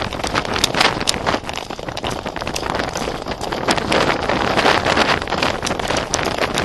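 Wind buffeting the microphone of a camera riding on a galloping horse, with a steady roar broken by many irregular knocks from the horse's hooves and gear.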